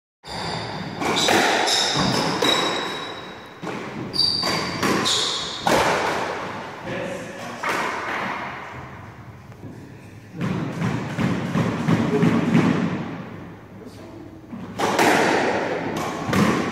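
Squash rally: sharp echoing smacks of the ball off rackets and the court walls, with brief high squeaks from shoes on the wooden floor. The hits thin out in the middle, where voices are heard, and resume near the end.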